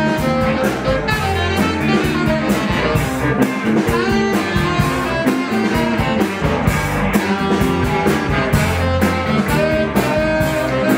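Blues band music with guitar and drums, a saxophone among the instruments, playing steadily.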